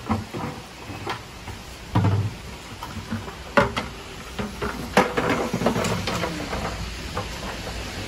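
Plastic bucket knocking and scraping on a tiled floor as a German Shepherd noses it and carries it by the rim: irregular knocks, the loudest about two, three and a half, and five seconds in.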